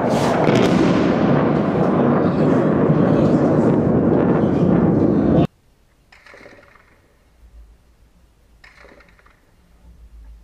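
A loud explosion: a sudden blast whose sharp crack fades within a second into a dense, loud rumble lasting about five seconds. It then cuts off abruptly, leaving only faint scattered sounds.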